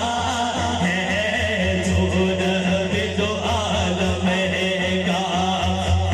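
A man's voice singing a devotional naat in long held, wavering notes, amplified over a steady low hum.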